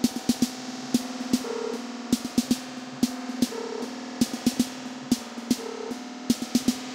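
Live electronic dub music played on synthesizers and a drum machine: sharp drum-machine hits in a broken rhythm over a steady synth drone, with a short synth note repeating about every two seconds.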